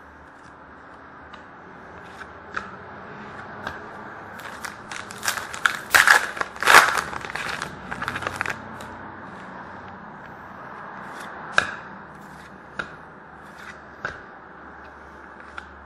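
Trading-card pack torn open and cards handled: a run of tearing and crinkling wrapper noise, loudest about six to seven seconds in, followed by a few separate clicks and taps.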